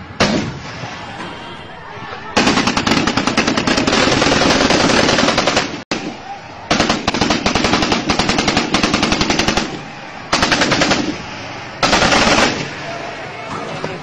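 Automatic gunfire in long rapid bursts: a short burst right at the start, a long one from about two seconds in, another after a brief break near the middle, then two shorter bursts near the end.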